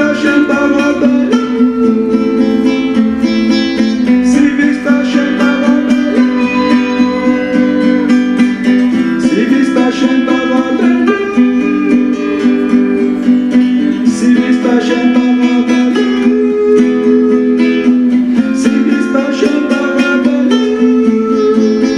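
Music: a plucked string instrument playing a changing melody over a steady low drone.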